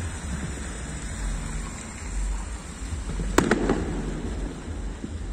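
An aerial firework shell bursting: a sharp bang about three and a half seconds in, with a second report a moment later and a short echo, over a steady background rumble.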